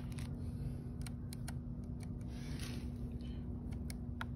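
Steady low hum with scattered light clicks and ticks as the stopped chainsaw's bar and chain are handled.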